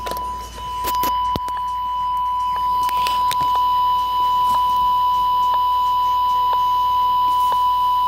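Bop It toy's speaker sounding a steady, high-pitched test-mode beep tone, with a few handling clicks near the start and a faint tick about once a second later on.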